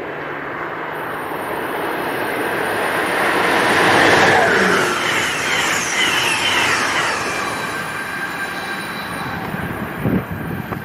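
An Amtrak Keystone Service train, led by an ACS-64 electric locomotive, passes through the station at speed. Its wheels and cars make a rushing noise that builds to its loudest about four seconds in and then slowly fades, with a high whine from the wheels near the peak.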